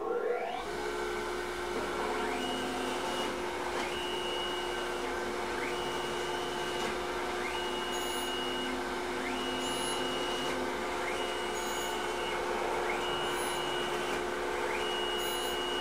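Tormach PSG 612 surface grinder running: the wheel spindle comes up to speed at the start and then runs with a steady hum. The wheel grinds a light thousandth-deep pass on a 4140 steel part while the table traverses back and forth, with a rising whine that repeats about every two seconds.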